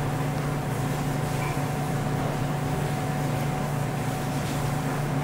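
Steady low mechanical hum of room machinery, with a faint constant whine above it.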